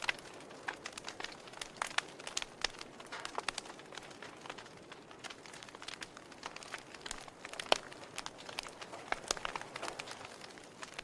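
Wood fire burning in a fireplace, crackling with irregular pops and snaps over a faint hiss, one sharper pop about three quarters of the way through.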